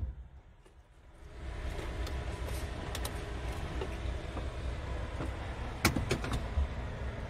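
Scania S730's V8 diesel idling, a low steady rumble heard from inside the cab. It fades in after a near-silent first second, and a few light clicks come through.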